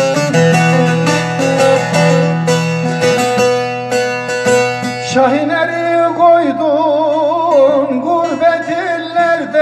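Bağlama (saz) playing a fast plucked instrumental interlude of a Turkish folk song; about five seconds in, a wavering melodic line with vibrato comes in over the strings.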